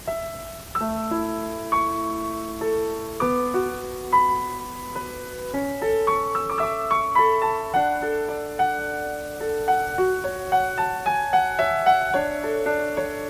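Background piano music: a slow melody over held chords that grows busier about halfway through.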